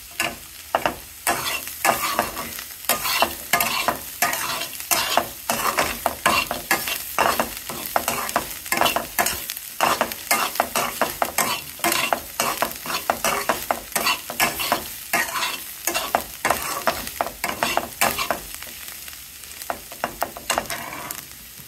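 Metal spatula scraping and clinking against a metal kadai, stirring a dry-fried mix of chopped snake gourd, with a light sizzle underneath. The strokes come thick and uneven, thinning out a little near the end.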